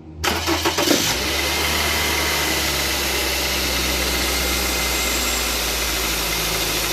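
Car engine cranked by the starter motor, catching after about a second and then idling steadily.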